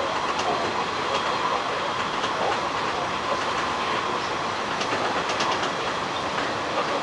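Hanshin 1000 series electric train running on the rails, heard from inside at the front of the car: a steady rolling noise with faint, irregular wheel clicks over rail joints.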